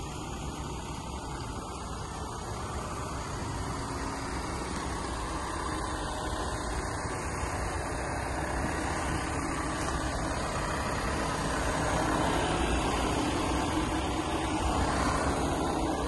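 VW Crafter van's 2.0 TDI four-cylinder diesel engine idling steadily, getting louder over the second half as the microphone nears the front of the van, over a steady hiss.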